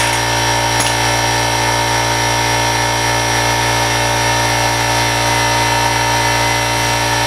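Steady mechanical hum of a motor running at an unchanging pitch.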